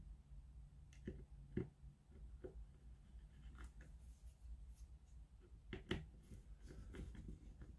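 A small hand screwdriver driving a screw into the MOSFET's heatsink inside an opened cordless drill: faint scattered clicks and scrapes, a few sharp ticks, the loudest about six seconds in.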